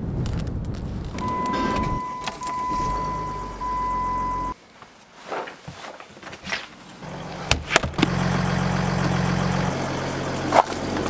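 A steady electronic beep tone lasting about three seconds over a low hum. After a sudden cut come scattered clicks and knocks, then a car engine idling steadily with a few sharp clicks over it.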